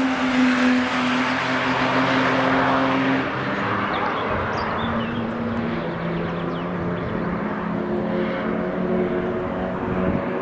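Cars passing on a race track at speed. The first passes close, its engine held at a steady high pitch with loud rushing noise for about three seconds. After that the sound drops, and a car's engine is heard further off, changing pitch as it goes.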